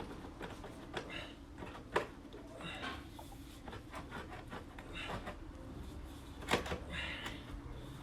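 Metal knocks, clicks and scrapes of a motorcycle exhaust being handled and fitted back into place, with short bursts of rapid clicking and two louder knocks about two and six and a half seconds in.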